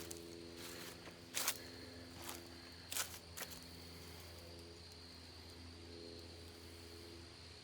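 Quiet outdoor ambience: a few sharp crunches and ticks in the first half, over a steady high insect whine and the faint low drone of a distant aircraft engine.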